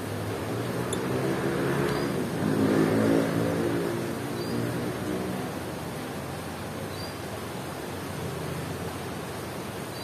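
A motor vehicle passing by: its engine noise swells to a peak about three seconds in, then fades away into steady background noise.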